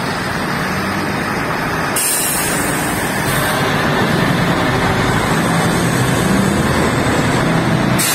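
Diesel engines of a dump truck, buses and minibuses idling and creeping in a traffic queue: a steady low drone, with a hiss joining about two seconds in.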